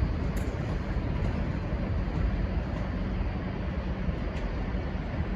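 V/Line N-class diesel-hauled passenger train departing: a steady low rumble with a few faint ticks.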